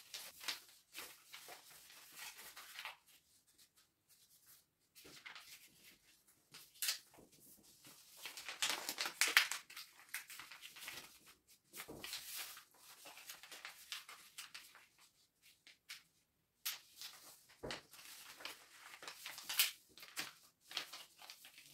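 A sheet of paper being folded and creased by hand: irregular rustles and sharp swiping scrapes, with short pauses between them.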